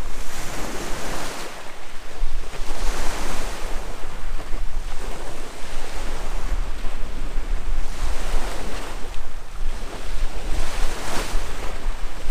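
Wind rumbling heavily on the microphone over sea waves washing against a rocky shore, the wash swelling and falling every second or two.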